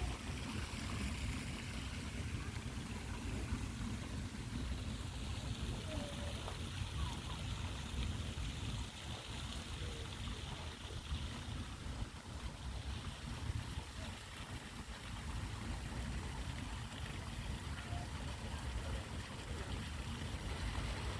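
Flowing stream water, a steady rush over a low rumble.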